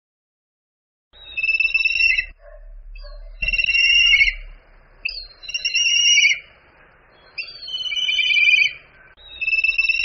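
Black kite calling: a high, quavering whistled call repeated five times, about every two seconds, starting about a second in.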